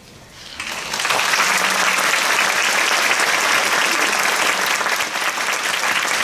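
Audience applause, rising from near quiet about half a second in to steady clapping.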